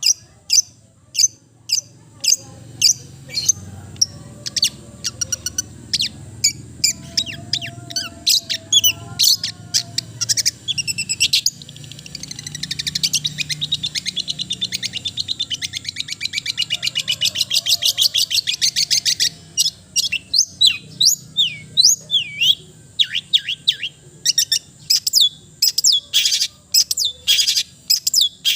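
Long-tailed shrike (cendet) singing: loud, sharp, high notes in quick runs, with a fast trill lasting about seven seconds midway through, then scattered sharp notes again.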